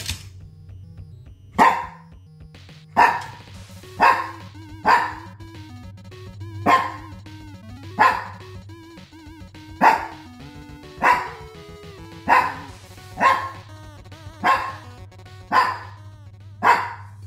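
A 14-year-old Shih Tzu barking in single barks about once a second, thirteen in all, over background music.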